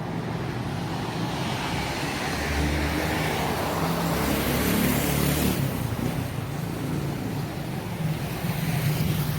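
Street traffic noise, with a motor vehicle passing close by: its engine rumble swells through the middle and drops away about five and a half seconds in.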